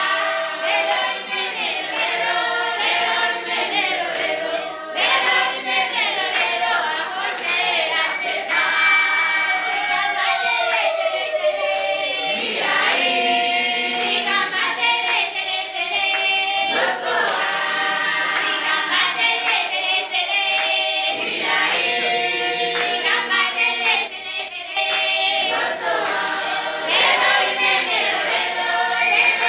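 A group of people singing together, accompanied by hand clapping.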